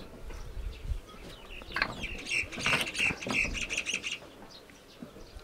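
Small birds chirping in quick runs of high notes for about two seconds in the middle, with a few soft knocks before.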